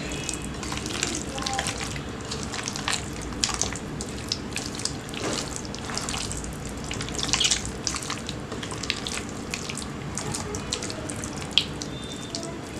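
Raw chicken wings being mixed by hand in a wet masala marinade, with irregular squelching and slapping.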